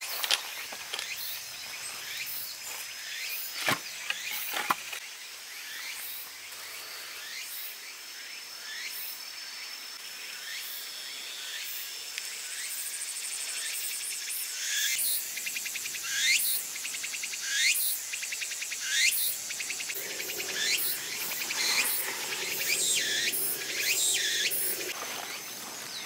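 Insects calling in woodland: a steady high-pitched drone throughout, and from about a third of the way in a run of short chirps that rise sharply in pitch, repeating roughly once a second. Two sharp knocks come about four seconds in.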